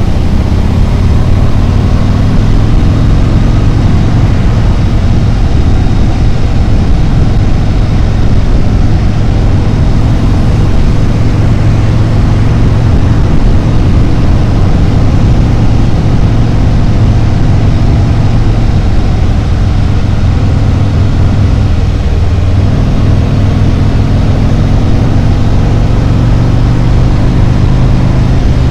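Harley-Davidson Road Glide's V-twin engine running steadily at road speed, with a low, even engine note. The note shifts slightly a little over twenty seconds in.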